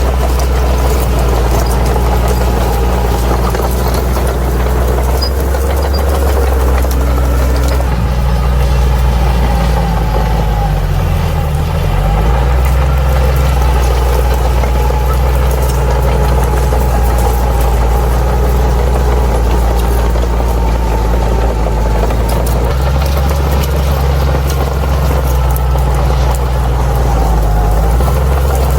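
Bulldozer's diesel engine running steadily under work. About eleven seconds in, the engine speed briefly dips and comes back up.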